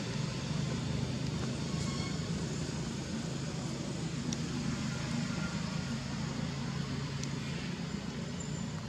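Steady low rumble of outdoor background noise, with a few faint clicks about four and seven seconds in.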